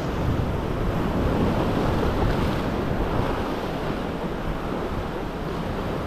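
Ocean swell surging and washing over a rock ledge in sheets of white foam, a steady rush of surf that eases slightly in the second half.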